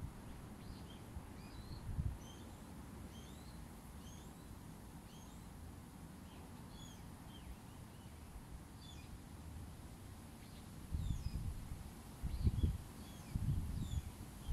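Small birds chirping and twittering all through, many short rising and falling chirps. Low gusts of wind buffet the microphone briefly about two seconds in and again several times in the last few seconds.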